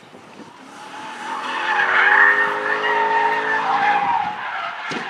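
BMW M3 sedan's V8 revving while its rear tyres squeal and skid through a drift. The squeal builds from about a second in, is loudest around two seconds and eases near the end.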